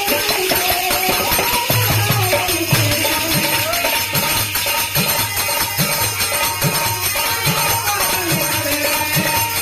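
Instrumental passage of a Hindi devotional bhajan: jingling hand percussion like a tambourine over a held note, joined about two seconds in by a drum beating evenly about once every 0.8 seconds.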